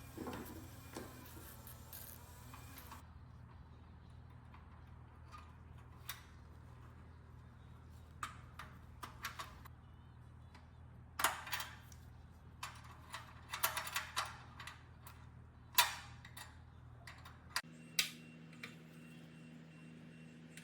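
Light metallic clicks and clinks of small metal objects being handled, irregular and in little clusters, over a steady low hum.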